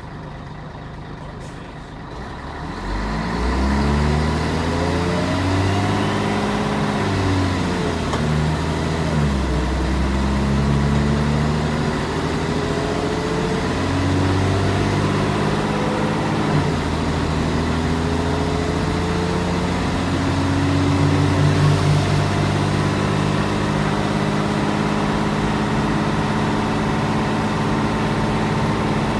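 Scania L113CRL bus's 11-litre six-cylinder diesel engine heard from inside the saloon. It picks up about two and a half seconds in and accelerates, its note rising and then dropping back with each of several gear changes before settling into a steady run for the last several seconds.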